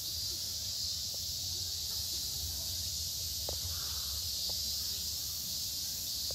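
Steady outdoor ambience: a high-pitched hiss and a low rumble, with a few very short, faint chirps or ticks scattered through.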